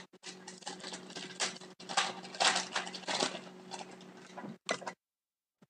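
Hockey trading cards being handled and flipped through: a run of quick papery rustles and slides of card against card, over a faint steady electrical hum. It cuts off abruptly near the end.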